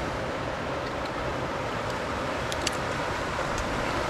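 Pond aerator churning the water with a steady rushing splash, with a few faint clicks about two and a half seconds in.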